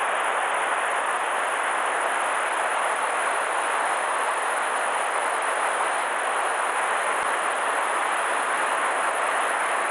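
Steady rushing of a river running high after a typhoon, an even unbroken wash of water noise.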